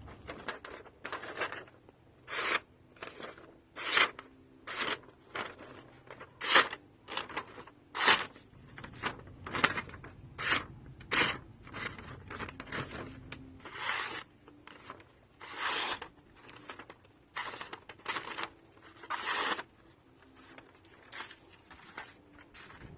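A series of short, irregularly spaced scraping strokes, about one a second, some longer and louder than others.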